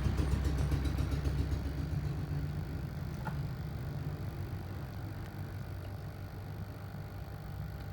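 Hot air rework station blowing steadily while capacitors on the phone's backlight supply line are desoldered: a low steady hum that slowly gets quieter, with one faint click about three seconds in.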